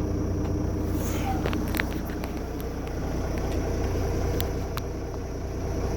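Volvo truck engine idling steadily, heard inside the cab, with a few faint clicks.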